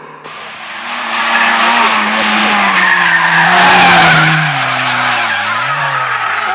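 Rally car skidding through a bend: a loud rush of tyre and skid noise builds from just after the start and peaks around four seconds in, while the engine note drops in pitch as the car slows.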